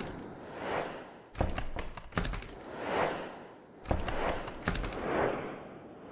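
Intro sound effects: a heavy hit followed by a quick run of crackling clicks about every two and a half seconds, each time giving way to a whoosh that swells and fades, timed to the title cards swinging in.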